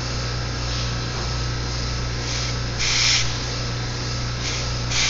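Short bursts of gas hissing from a refrigerant hose as it is purged through the gauge manifold: one louder hiss about three seconds in and two brief ones near the end, over a steady low hum.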